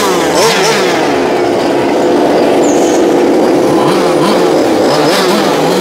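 Several 1:5 scale RC race cars with Zenoah two-stroke petrol engines running on track: a steady engine drone, with engines revving up and down as cars pass about a second in and again near the end.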